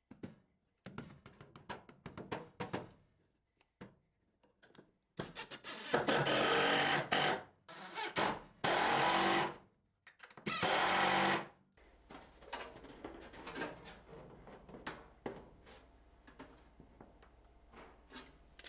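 A DeWalt cordless driver runs in three bursts of one to two seconds each, driving screws through the sheet-metal duct boot into a wood block. Light handling clicks and knocks come before and after the bursts.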